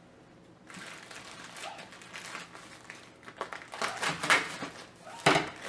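Paper rustling and crinkling as an instruction leaflet is unfolded and handled, in irregular crackles with one sharper crackle near the end.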